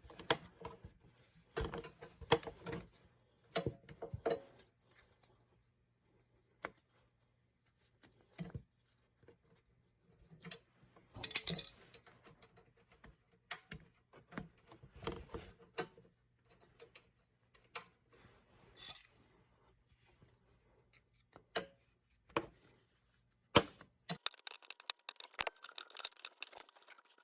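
An Allen wrench clinking and scraping against metal as the oil filter cover screws are worked out of a Yamaha 225DX engine: scattered clicks and light knocks with quiet gaps, and a dense run of quick clicks near the end.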